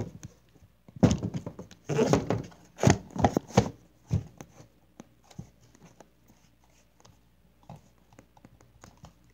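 Close handling noise: a cluster of knocks and rustling in the first four seconds as hands move the camera and things on the table, then only a few small clicks.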